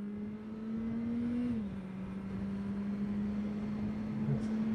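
Honda CBR650R's inline-four engine running at steady, light throttle over rushing wind and road noise. Its note climbs slightly, drops about a second and a half in, then holds steady while the overall level builds.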